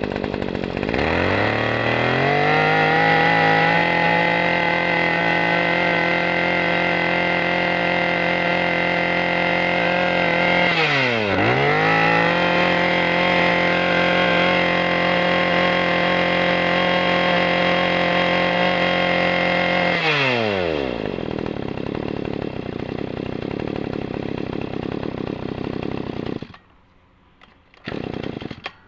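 Small 20 cc Maruyama brushcutter's two-stroke engine running. It is throttled up from idle about a second in and holds at high revs, drops and picks straight back up around the middle, then falls back to idle. It is switched off, cutting out abruptly a couple of seconds before the end, and a brief sound follows.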